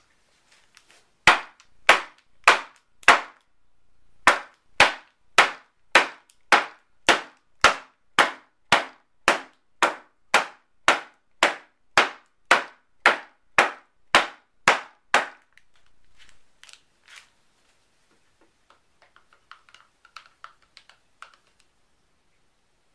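A filled soap mold knocked down repeatedly on a wooden tabletop: about two dozen sharp knocks, four then a short pause, then a steady run of a little under two a second, the usual way of settling fresh soap batter and knocking out air bubbles. Near the end, faint clinking and scraping of a spoon stirring soap batter in a plastic jug.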